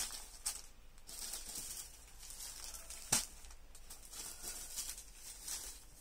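Cloth rustling as folded linen sarees are handled and set down on a table, with a sharp tap a little after three seconds in.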